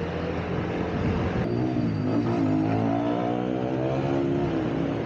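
Motorcycle engine running in traffic with road noise. About one and a half seconds in the sound changes abruptly, and then an engine revs, its pitch dipping, climbing and slowly falling off.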